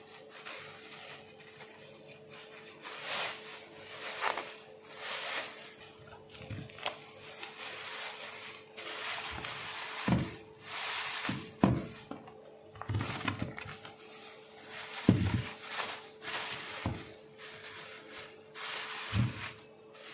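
Thin plastic carrier bags rustling and crinkling in irregular bursts as bags of frozen food are packed into them, with a few dull thuds as packs are set down, over a steady faint hum.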